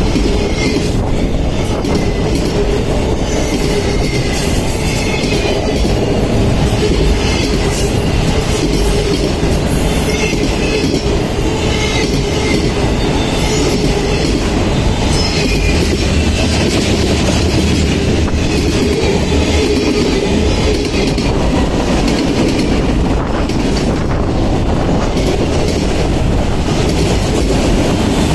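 Train cars rolling past with a steady clatter of wheels over rough track, at a spot the uploader calls really bad, and some faint wheel squeal.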